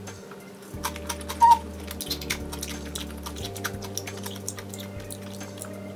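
Close-up mukbang eating sounds: wet clicks and smacks of chewing a mouthful of rice mixed with soy-marinated crab, with one short ringing clink about one and a half seconds in. Soft steady background music runs underneath.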